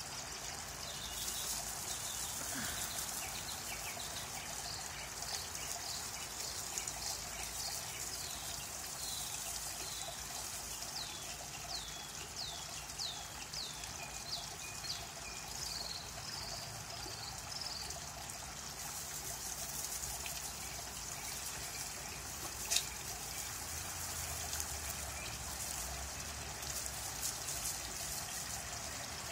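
Steady trickle of water running over a small stone garden waterfall, with a bird chirping a run of short falling notes through the first half and a single sharp click about three-quarters of the way through.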